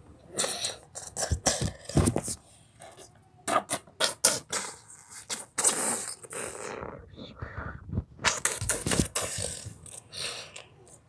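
Mouth-made sound effects: quick irregular bursts of hissing, puffing and clicking, with two short lulls.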